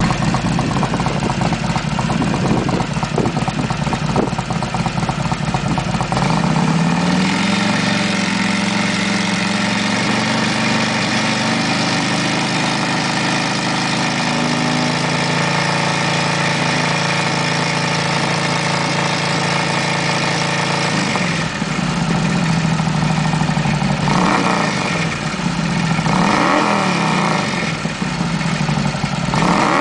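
Harley-Davidson XR1200's air-cooled 1200 cc V-twin running through a D&D aftermarket exhaust. It idles with a lumpy beat, is raised to a steady higher speed about seven seconds in and held there for some fourteen seconds, then drops back to idle and is blipped up three times in the last six seconds.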